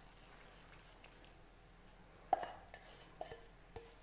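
Sugar syrup bubbling faintly in a steel kadai. A little over two seconds in, a utensil gives a sharp knock against the pan, followed by a run of smaller clicks and knocks as the gram-flour and ghee batter is stirred into the syrup.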